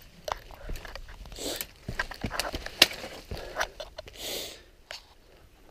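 Footsteps scrambling over rocks and dead branches: irregular cracks, clicks and clatter, with a couple of longer rustles of brush.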